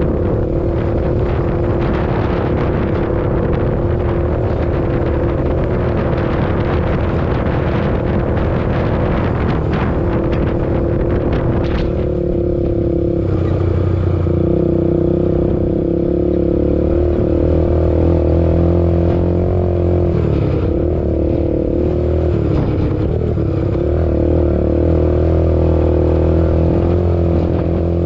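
ATV engine running at a steady pitch while the quad is ridden. Rough noise over it in the first half gives way to a deeper, steadier engine note from about halfway through.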